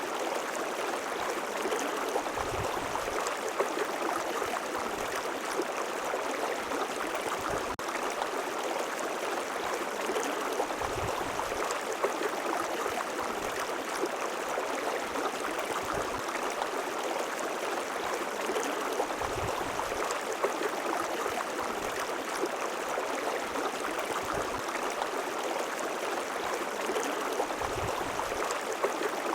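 River water flowing and babbling steadily, with a few brief low gurgles.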